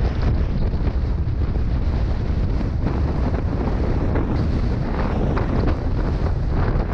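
Storm wind buffeting a GoPro Hero 5 Black action camera's microphone: a steady, loud, deep rumbling roar, with scattered short crackles on top.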